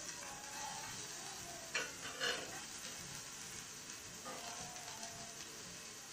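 Chopped onions sizzling in a little hot oil in a frying pan, a steady hiss, with two brief knocks about two seconds in.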